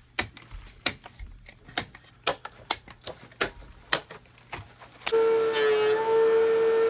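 A string of irregular sharp clicks and knocks, wood and tools being handled. About five seconds in, a woodworking power tool's motor comes in abruptly, running loud and steady.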